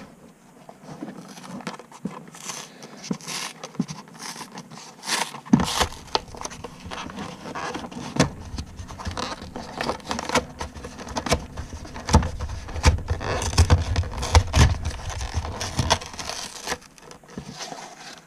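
A cardboard card-game deck box being opened by hand, with scraping, crinkling and crackling from the flaps and the wrapping inside. It grows louder and busier from about five seconds in.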